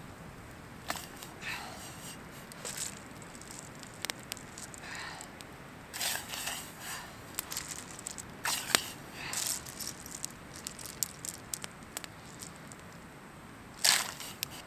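Small driftwood fire crackling with scattered sharp pops, broken by a few louder rustling, crunching noises; the loudest comes near the end.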